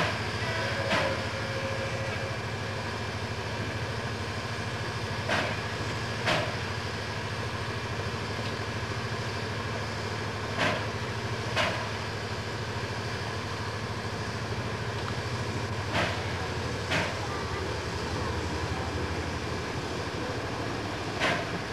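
V200 twin-engine diesel-hydraulic locomotive running slowly with a steady low engine hum. Sharp clacks come in pairs about a second apart, repeating roughly every five seconds, as the train rolls over rail joints.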